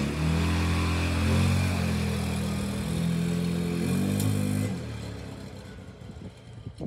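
Viarelli Hunter 150cc ATV engine revving as it pulls away, its pitch climbing at the start and then stepping up and down several times. The sound fades about five seconds in as the quad drives off.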